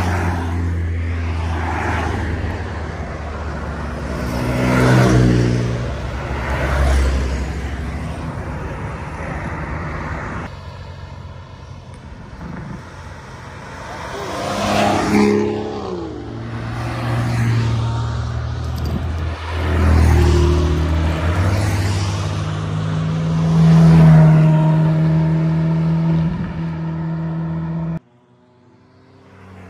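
Sports cars driving past one after another, their engines swelling loud and fading as each goes by, with revs rising and falling; the first is a Porsche 911 GT3 RS with its flat-six. The sound cuts off abruptly near the end.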